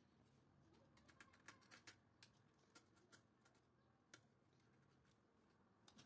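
Near silence with faint small clicks as a screwdriver and wire are worked at a contactor's terminal screws: a quick cluster of ticks about a second in, then scattered single ticks.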